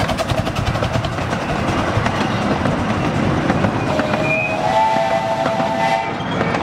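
A ridable miniature railway train's riding cars rolling past close by, wheels clattering steadily on the rails. About two-thirds of the way through, a chime whistle of several notes sounds for about two seconds.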